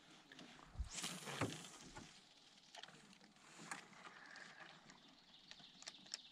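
A fishing cast from a canoe: a brief swish about a second in as the lure goes out, followed by faint scattered clicks and light knocks of the reel and gear.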